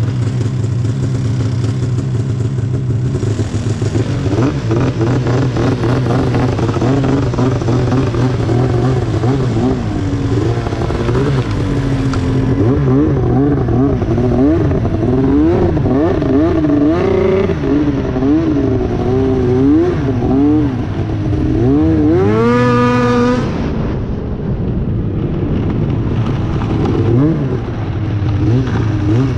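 A 2009 Arctic Cat Crossfire 1000 snowmobile's two-stroke twin engine running under way through a loud GGB aftermarket exhaust can. The revs rise and fall again and again with the throttle. About three-quarters of the way in, one long rising rev climbs high and then drops back.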